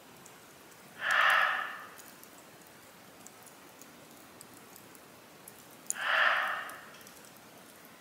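A roe deer barks twice, two loud short barks about five seconds apart, which the camper takes for protest at his presence. Between them a wood fire in a fire pit crackles faintly.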